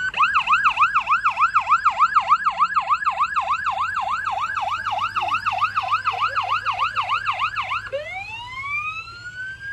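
Ambulance's electronic siren on a fast yelp, about three rising-and-falling sweeps a second, switching near the end to a slow wail that climbs in pitch.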